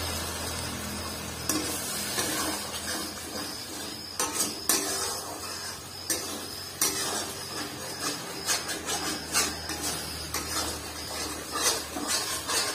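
Long metal ladle stirring and scraping a thick masala paste in a metal kadai, with irregular clinks and knocks of the ladle against the pan over a low sizzle, as the spiced tomato masala is fried down.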